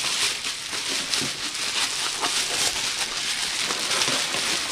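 Packaging rustling and crinkling in a steady run of small crackles as a small cardboard box is opened and its contents unwrapped by hand.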